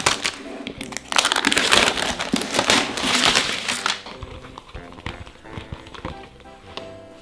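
The wrapper is crinkled and torn off a large plastic toy surprise egg. It crackles loudly from about a second in until about four seconds in, then gives way to softer handling of the bare plastic egg.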